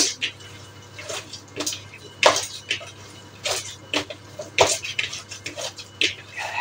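Hands kneading a raw meatball (köfte) mixture, irregular wet squishes and slaps about once or twice a second.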